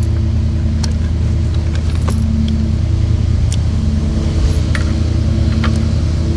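An engine idling steadily, with a few sharp metallic clinks scattered through it.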